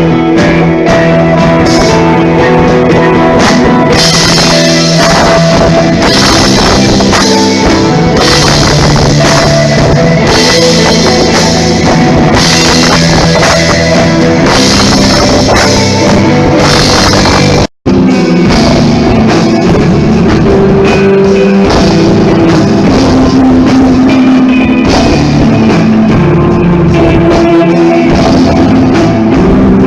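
Live rock band, electric guitar over a drum kit, played loud with heavy cymbal wash through the first half. The sound cuts out completely for a split second about two-thirds of the way through.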